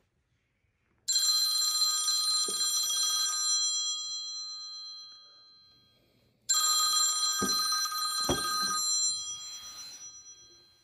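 Smartphone ringtone on an incoming call, two rings of a bright chiming tone, each about two and a half seconds and then fading. Two short knocks come during the second ring.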